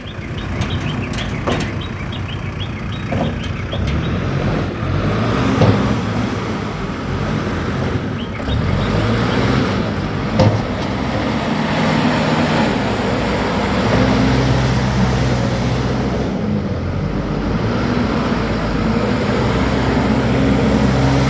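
ACE AX124 backhoe loader's diesel engine running under work, its pitch stepping up and down, with a few sharp knocks, the loudest two about six and ten seconds in.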